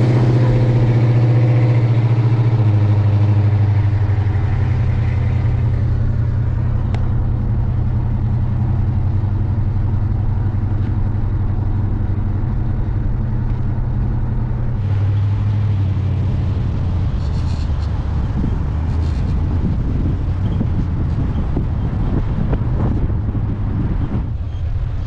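Car engine running at low, steady revs while driving, a low steady note that steps down slightly a few seconds in and shifts again about halfway through.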